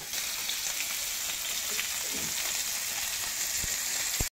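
Three masala-coated Indian mackerel frying in hot coconut oil with curry leaves in a small pan: a steady sizzle that cuts off suddenly just before the end.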